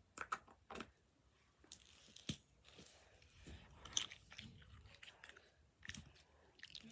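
Slime being pressed and worked close to the microphone: faint, scattered small clicks and crackly pops.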